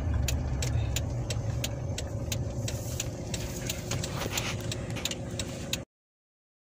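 Low, steady engine and road rumble inside a Dodge car's cabin as it rolls slowly, with a light, even ticking about three times a second over the first few seconds. The sound cuts off suddenly near the end.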